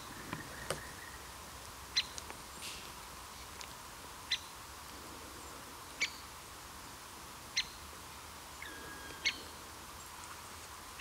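A small bird's short, sharp call, repeated about six times at intervals of a second and a half to two seconds, over quiet forest ambience.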